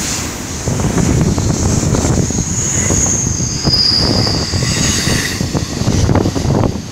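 Double-stack container freight train rolling past on the rails, a steady low rumble of wheels and cars with scattered knocks. High-pitched wheel squeal rises over it for about two seconds in the middle, then fades.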